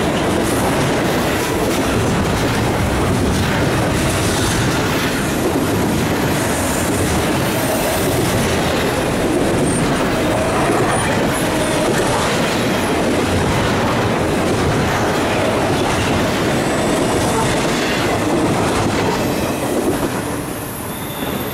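Double-stack intermodal freight cars rolling past at speed: steady wheel-on-rail noise with scattered knocks. It drops off near the end as the last car passes.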